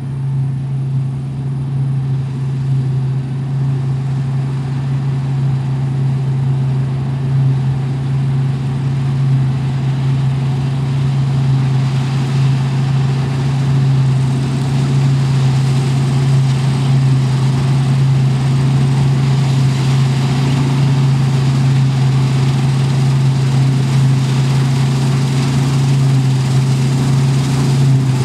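Combine harvester cutting and threshing wheat: a steady deep engine drone with machinery noise above it, growing gradually louder as the machine comes closer.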